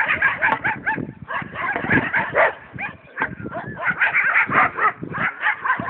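Dogs fighting: several dogs barking and yelping over one another in quick, overlapping calls, with a short lull about three seconds in.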